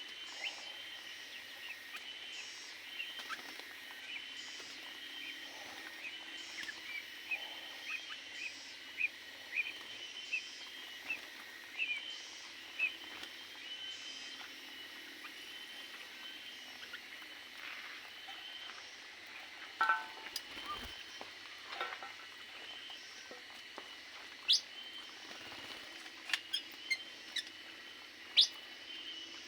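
Small aviary birds chirping repeatedly in short high notes, with a few louder sharp calls or clicks in the last third.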